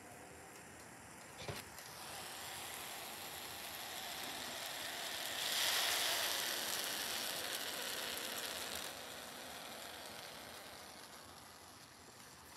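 A soft sizzling hiss from the wet paper towel sealed under an upturned glass over a tea light. It swells to its loudest about six seconds in, then fades. A short knock comes about one and a half seconds in.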